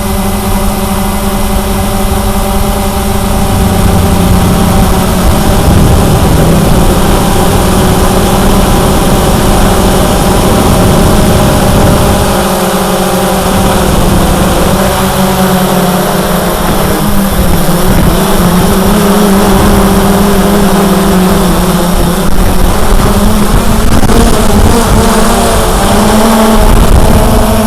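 Cheerson CX-20 quadcopter's brushless motors and propellers humming loudly, the pitch wavering up and down as the throttle changes, over a constant rush of noise.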